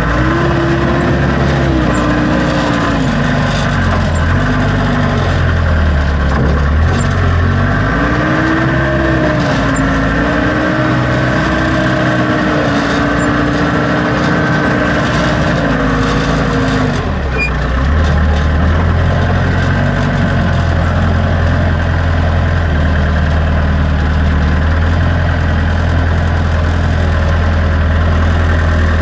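Backhoe loader's engine running, its revs rising and falling over the first half as the machine works, then settling into a steady lower run about 17 seconds in.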